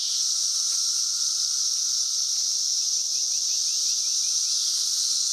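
Dense chorus of 17-year periodical cicadas (Brood XIV), a steady, unbroken high-pitched drone with a fainter lower hum beneath it.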